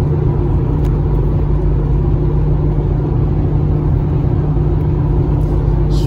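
Car engine and road noise heard from inside the cabin while cruising steadily at highway speed: an even, unchanging low drone.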